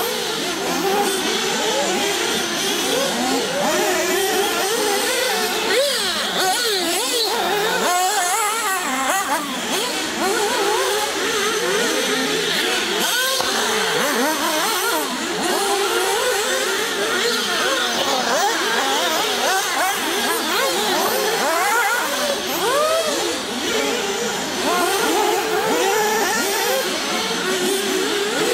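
Several 1/8-scale nitro RC cars racing, their small glow-fuel engines whining at high revs and rising and falling in pitch as they overlap one another.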